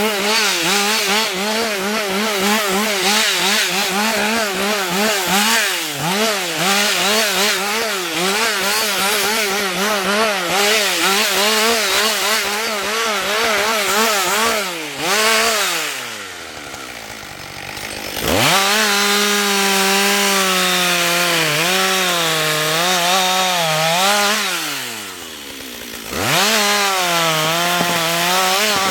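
Husqvarna 562 XP chainsaw running at high revs, its pitch wavering. The revs fall away about halfway through and again near the end, each time picking back up quickly.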